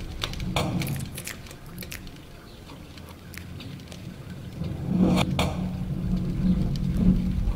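Experimental sound-art mix made from manipulated recordings of a house and its surroundings: a low drone with scattered clicks and crackles. It dips in the middle and swells again about five seconds in.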